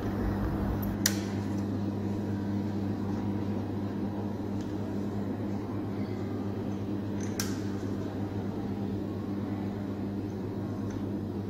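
Steady low electrical hum of running lab equipment, with two sharp clicks: one about a second in, the other about seven seconds later.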